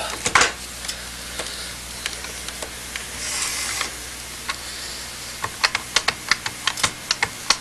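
Desk telephone handset lifted off its cradle with a clunk, then a quick run of push-button keypad clicks, about five a second, as a phone number is dialed.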